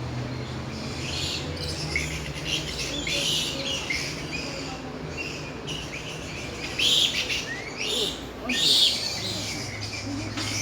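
Birds calling and chirping in repeated short bursts, with two louder calls about seven and nine seconds in.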